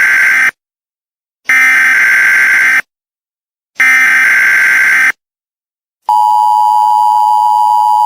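Emergency Alert System tones: the end of one harsh, buzzy SAME header data burst, then two more, about a second apart, followed about six seconds in by the steady two-tone EAS attention signal.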